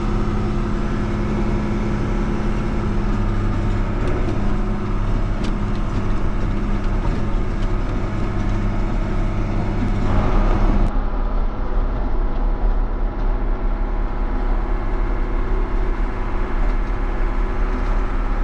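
John Deere tractor's diesel engine running steadily under a low, even drone, briefly louder about ten seconds in.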